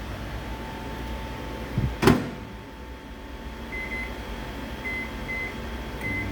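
Microwave oven being operated: a loud click of the door or latch about two seconds in, then four short high keypad beeps, and the oven's low hum starting up again near the end.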